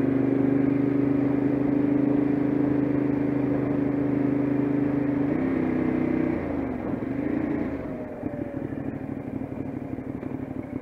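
Motorcycle engine running at a steady note while riding along. Between about five and eight seconds in the pitch falls as the revs drop, and it settles into a lower, quieter pulsing note at low revs.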